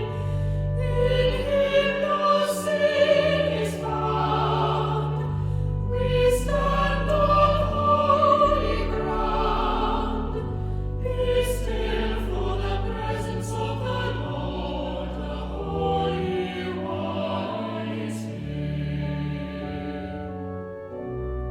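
A hymn sung by a choir over held keyboard chords, the bass notes stepping every second or two.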